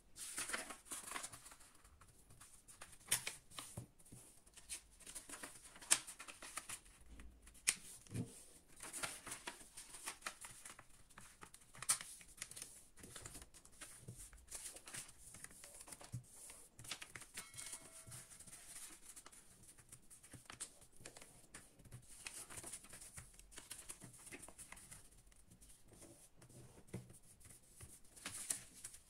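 A square sheet of paper being handled and folded on a tabletop: faint, irregular rustling and creasing, with a few sharper taps and crackles as the folds are pressed flat.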